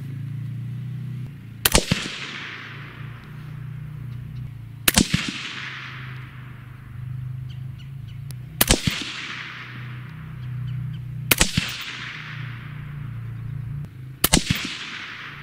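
Five shots from a suppressed AR-15 in .223 Wylde fitted with a Liberty Infiniti X suppressor, fired at an even pace about three seconds apart. Each is a sharp report that trails off over about a second.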